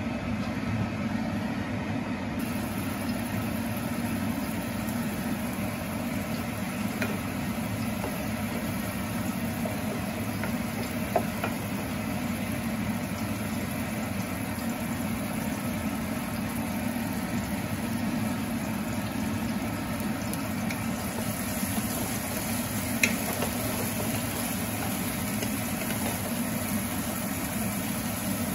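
Chopped red onion and garlic sizzling in hot oil in a non-stick frying pan while being stirred with a wooden spatula, the sizzle starting about two seconds in. Two sharp taps stand out, and a steady low hum runs underneath.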